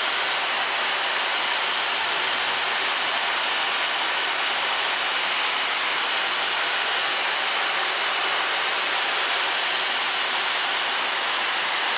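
Steady rush of airflow noise on a Boeing 737-800 flight deck during descent, an even hiss that holds level throughout.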